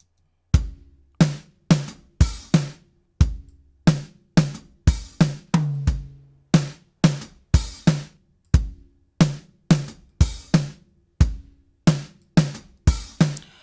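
A drum kit track played back: punchy kick and snare hits with hi-hat, in a steady groove with short, tight decays. The track runs through the Waves H-Comp hybrid compressor, with its Analog setting adding texture and warmth.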